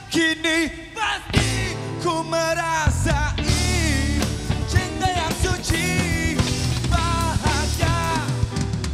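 A live rock band playing, with a male vocalist singing held, wavering notes over drums, bass guitar and electric guitar.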